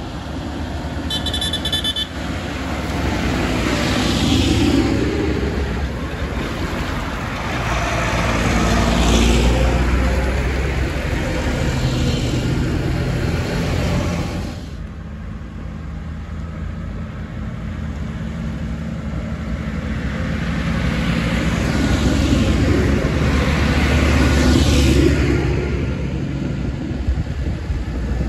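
A line of farm tractors, including a Fendt and a Massey Ferguson, driving past one after another on a wet road: diesel engines running and tyres hissing on the wet tarmac, the sound swelling and fading as each one goes by, several times over. A short horn toot about a second in.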